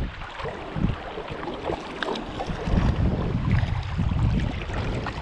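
Wind buffeting the microphone in uneven gusts over a steady rush of water, with a few faint clicks.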